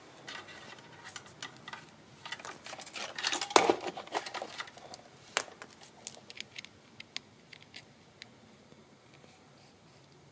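Handling noise from setting up a multimeter and its test leads on a battery: small clicks, taps and rustling, with a louder clatter about three and a half seconds in. The sounds thin out to a few faint ticks in the second half.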